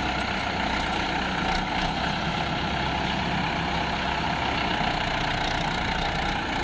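Swaraj tractor diesel engines running steadily under load, hauling a fully loaded trolley through deep mud.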